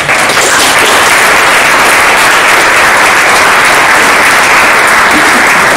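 Audience applauding: dense, even clapping from a full hall.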